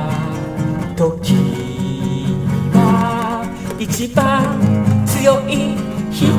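Nylon-string classical guitar played as accompaniment to a man singing in Japanese.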